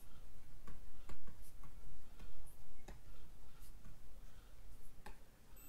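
Stylus tapping and scratching on a writing tablet as words are handwritten: a run of irregular light clicks and ticks, a few a second.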